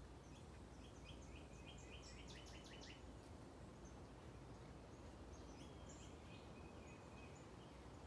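Faint woodland songbirds. One bird sings a run of short notes that speeds into a quick trill about two to three seconds in, and another phrase follows about six seconds in, with thin high chips from other birds scattered throughout.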